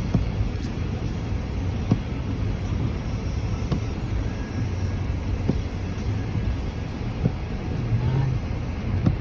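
A car's cabin while driving slowly through a snowstorm: a steady low rumble of engine and road with a hiss over it, and a light knock about every two seconds.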